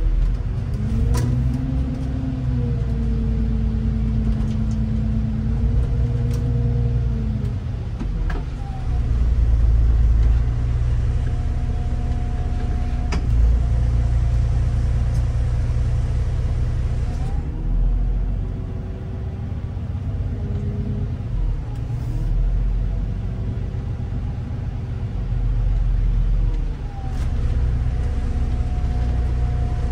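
City bus under way: its engine and drivetrain note climbs in pitch and holds steady, falls away about eight seconds in, climbs again and drops once more late on, over a constant low road rumble.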